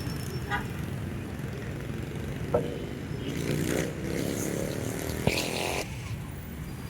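Road traffic: a steady engine hum, with vehicles passing and a motorcycle-like engine note rising about five seconds in.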